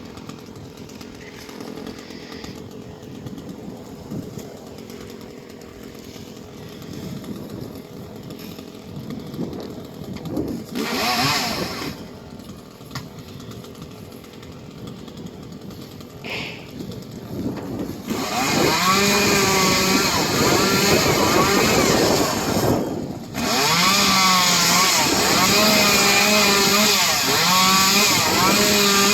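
Stihl chainsaw: two short revs about 11 and 16 seconds in, then run at full throttle from about 18 seconds on, its pitch wavering as it bogs and recovers while cutting through the palm trunk, with a brief drop in throttle near 23 seconds.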